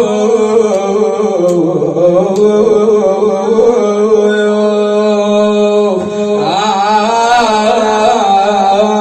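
A young man's voice singing a nai, an Iraqi Shia lament, drawn out in long, slowly wavering held notes without words, over a steady low drone.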